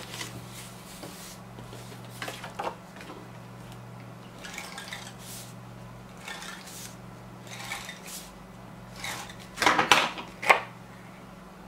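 Paper and cardstock being handled and slid on a cutting mat: short scattered rustles and scrapes, the loudest a quick cluster near the end, over a steady low electrical hum.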